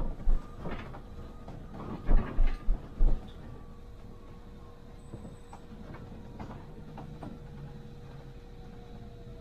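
Cabin noise of a MAN Lion's City hybrid bus on the move: a few heavy knocks and rattles in the first three seconds, then steady running with a faint whine that slowly falls in pitch.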